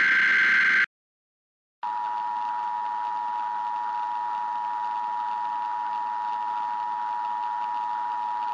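Emergency Alert System tones: the last data burst of the digital header ends just under a second in, and after a second of silence the steady two-tone attention signal sounds.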